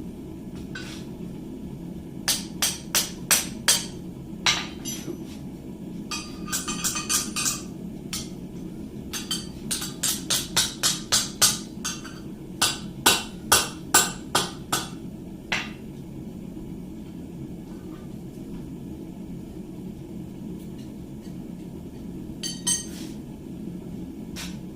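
Hand hammer striking hot steel on an anvil in irregular runs of blows, some light and quick, some heavier, with pauses between; this is a ring being forged around a Claydon clamp jig. A steady low hum runs underneath.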